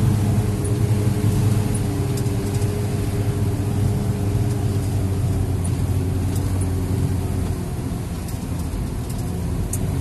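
Shuttle vehicle's engine running steadily, heard from inside the cab while it drives along a narrow mountain road, with tyre and road noise beneath.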